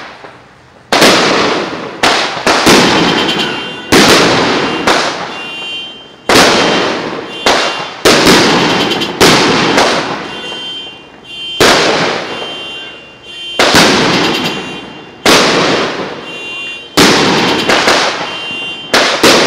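A 16-shot aerial firework cake firing: a rapid string of loud bangs, about one a second, from shells launching and bursting. Each bang trails off before the next, and some leave a faint high whistle ringing after them.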